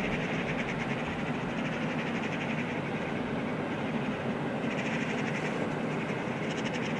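Freight train of covered hopper wagons rolling along the track, a steady low running sound with runs of rapid wheel clicks over the rails, strongest at the start and again near the end.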